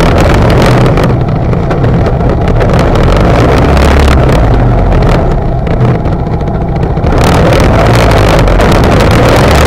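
ATV engine running loud and close while its front-mounted plow blade pushes snow and slush into a bank. A steady low engine rumble runs under a hiss of rushing noise that fades twice for a couple of seconds.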